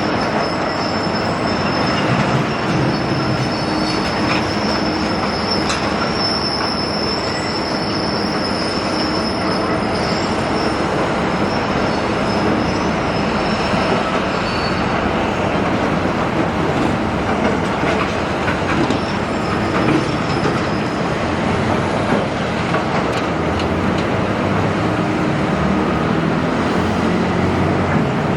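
Large Doosan excavator working on a building demolition: steady loud machine and grinding noise, with a high thin metallic squeal through the first half that fades out about halfway through.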